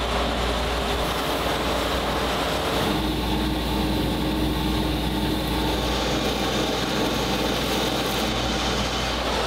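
Rotary polishing spindle running steadily while a stainless steel strainer part spins on it and is buffed by hand. A constant low hum sits under a broad whirring noise, and the machine's tones shift about three seconds in.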